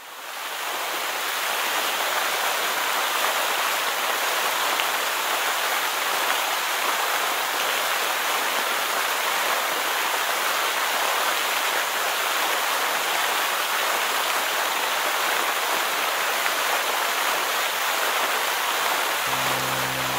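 Steady rushing hiss of a waterfall and its stream. Music with a low, steady beat comes in about a second before the end.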